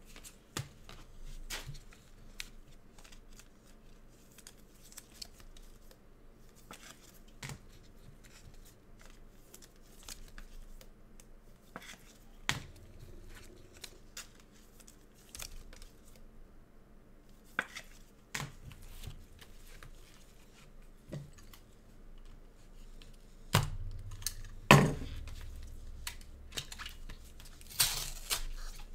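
Trading card packs being torn and cut open: wrappers tearing and crinkling, with scattered clicks and taps as cards and packaging are handled. Two louder knocks come about three-quarters of the way through.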